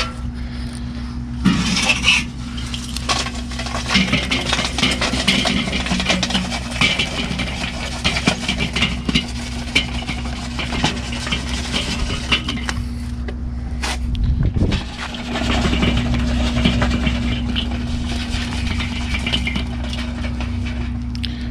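Charcoal being raked and spread out in a grill: a run of irregular scraping, clinking and rattling, with a couple of brief pauses.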